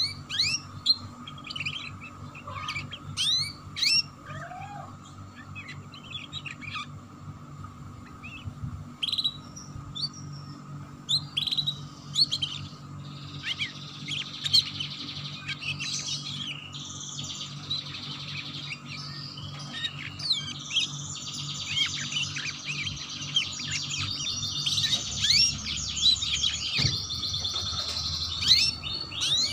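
Domestic canary singing in the 'ngeriwik' style: scattered chirps and short rising notes at first, building after about ten seconds into dense, rapid trills that run almost without a break through the second half.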